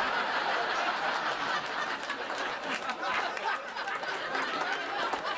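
Comedy club audience laughing together after a punchline, a dense crowd of overlapping laughs.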